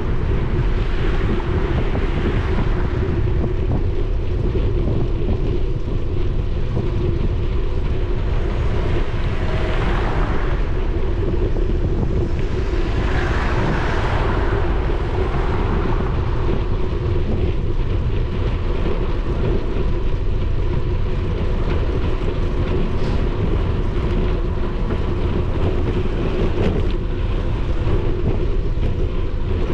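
Wind rushing over a GoPro's microphone while cycling, a steady low rumble with a constant hum underneath. A car passes on the adjacent road, swelling and fading about halfway through.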